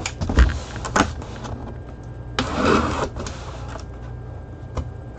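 A cardboard helmet box being handled and opened: several sharp knocks, and a rustling scrape of packaging lasting under a second about two and a half seconds in.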